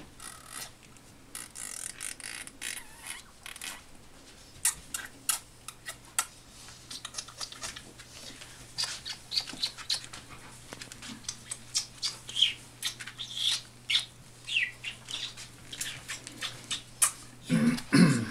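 Young puppies giving short, high, falling squeaks and whines over a busy patter of clicks and scratches from the puppies moving about on the whelping-box bedding. A louder, lower voice sound comes right at the end.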